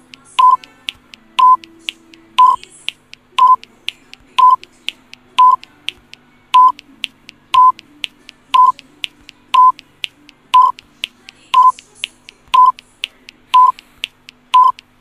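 Quiz countdown-timer sound effect: a short, loud electronic beep about once a second, with fainter ticks in between.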